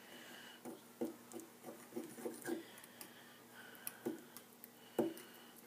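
A spoon stirring cake batter in a ceramic coffee mug: irregular soft knocks and clicks as it hits the sides of the cup, the loudest about four and five seconds in.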